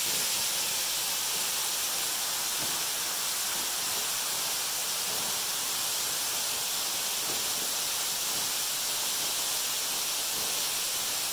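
Waterfall cascading down a rock face, a steady rushing hiss of falling water and spray.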